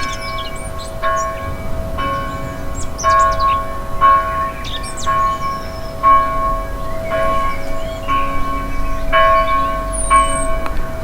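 A church bell tolling, struck about once a second, each stroke ringing on into the next. Birds twitter and chirp over it throughout.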